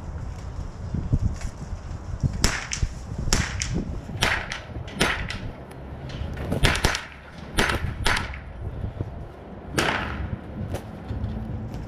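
Series of sharp .22 rimfire rifle shots, about a dozen, fired singly, in pairs and in quick strings with short pauses between, over a steady low rumble.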